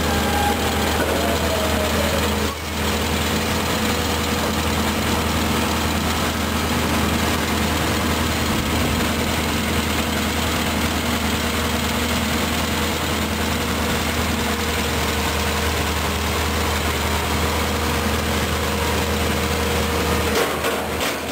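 Heavy construction machinery engines running steadily, a continuous low diesel drone with a held tone over it. The sound dips briefly about two and a half seconds in.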